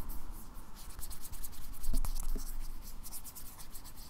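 Fingertips rubbing back and forth over the frosted matte glass back of an iPhone 11 Pro, in quick repeated strokes, with a light knock or two about halfway through.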